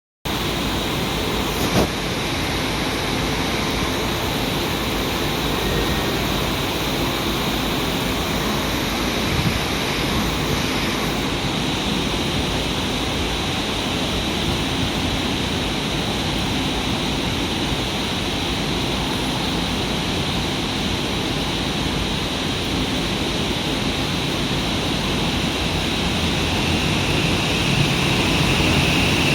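Steady, even hiss and hum from a JR electric train standing at a station platform, growing slightly louder near the end as it gets ready to move off.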